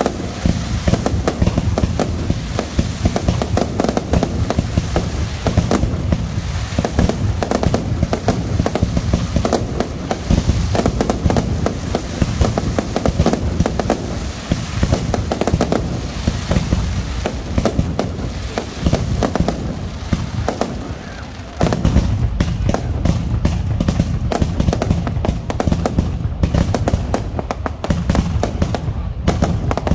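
Aerial fireworks launching and bursting overhead: a dense, continuous run of bangs, pops and crackles that eases briefly about two-thirds of the way through, then picks up again.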